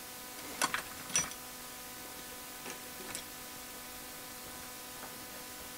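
A handful of light clicks and ticks in the first three seconds, over a steady faint electrical hum.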